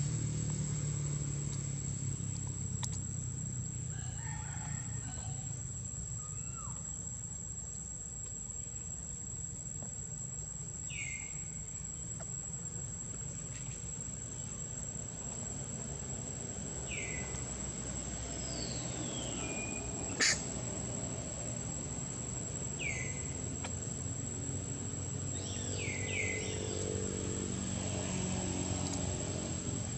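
Outdoor ambience: a steady high insect drone over a low rumble, with a handful of short high-pitched calls from about ten seconds on and one sharp click about twenty seconds in.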